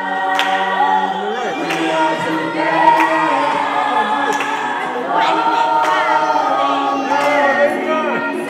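A children's choir singing a cappella, several voices holding long notes together in chords.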